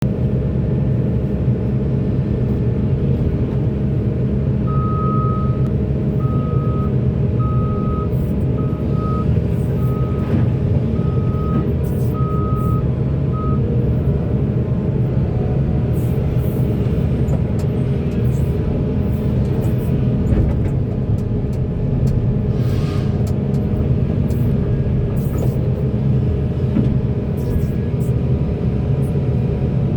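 Heavy mining excavator's diesel engine running steadily, with a haul truck's reversing alarm beeping about once a second from about five seconds in to about thirteen seconds in as the truck backs up to be loaded.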